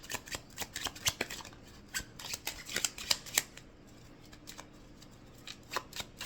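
A deck of oracle cards being shuffled by hand: a quick run of papery flicks and snaps for about three and a half seconds, a lull, then a few more flicks near the end.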